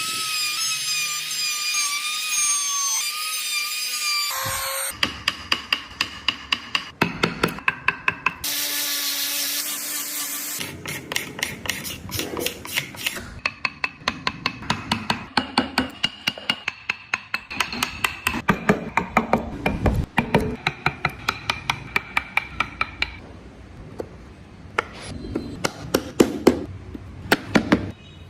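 Hand wood carving: a hammer tapping a carving chisel into wood in quick runs of sharp, ringing strikes, several a second. A power tool whines at the start and runs again for about two seconds near the ten-second mark.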